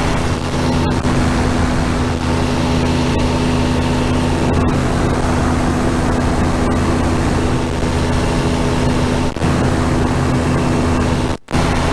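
Powered parachute's engine and propeller droning steadily at cruise power, heard from the pilot's seat. The sound cuts out for a split second near the end.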